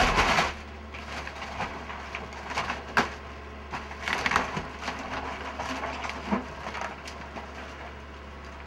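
Wooden building structure being crushed and splintered in demolition: a loud crash at the start, then scattered cracking and snapping of timber for several seconds.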